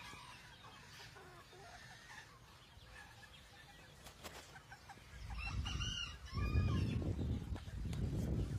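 Black rosecomb bantam chickens clucking softly, then a rooster gives a short crow a little past the middle. A loud low rumble runs under the second half.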